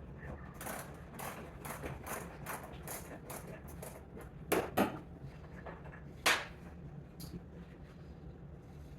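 Double ratchet wrench clicking as it is worked back and forth to loosen small nuts from a bracket, in short bursts about two to three a second, with a few louder metal knocks around the middle.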